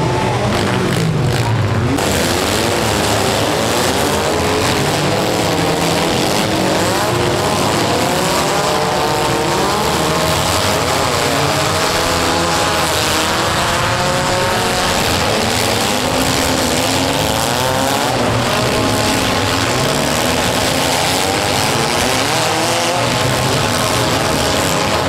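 Engines of several economy-compact demolition derby cars revving up and down together, running hard without pause.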